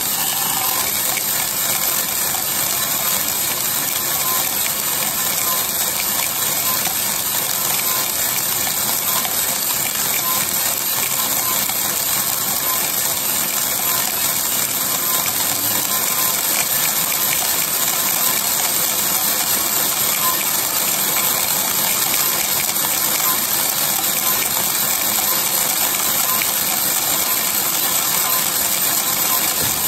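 3 kg Mill City coffee roaster running with 1 kg of green coffee beans tumbling in its rotating drum: a steady, dense rattle of beans.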